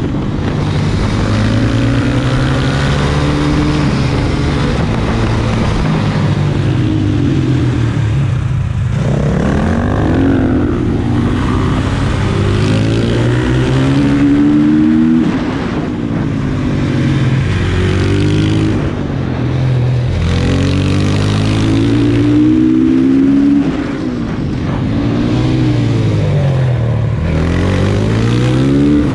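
Supermoto motorcycle engine heard from on board, revving up hard and dropping off again over and over as the bike accelerates out of corners and shuts off for the next, with short breaks in throttle about 9, 15 and 24 seconds in.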